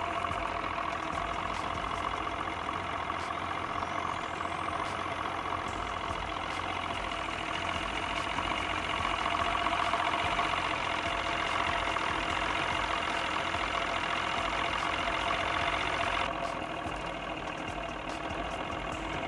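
Boat motor running steadily under way, with a steady rushing noise over it; the sound dulls somewhat about sixteen seconds in.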